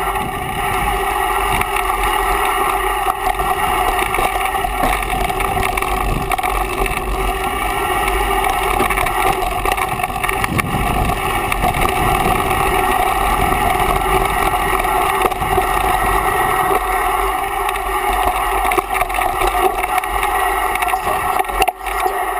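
Mountain bike riding downhill on a dirt trail: a loud, steady rush of wind on the microphone mixed with tyre and frame rattle, with a constant hum running under it. It drops away right at the end as the bike stops.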